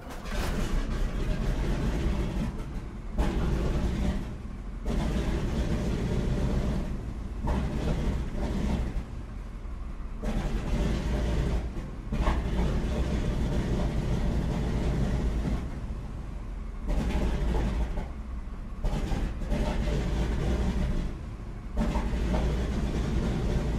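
Rumbling vehicle sounds that change abruptly every few seconds as one recorded sound effect cuts to the next.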